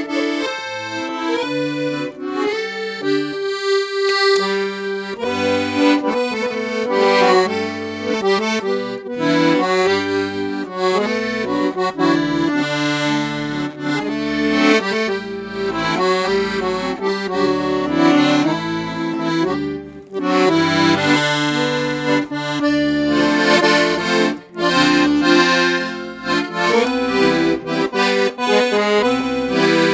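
Black Parrot piano accordion with 41 treble keys, 120 bass buttons and three sets of LMM treble reeds, played as a tune: a melody in the right hand over regularly repeating left-hand bass notes.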